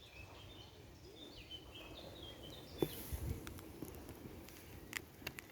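Small birds chirping in short repeated phrases. About three seconds in, a sharp knock followed by a low thump, and a few more clicks near the end.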